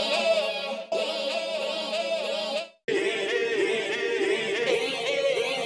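A vocal sample played through Logic Pro X Alchemy's granular synthesis engine with the number of taps and the tap spacing raised, so several parts of the sample play back at once as a layered vocal texture. It comes as three held notes, the last one lower.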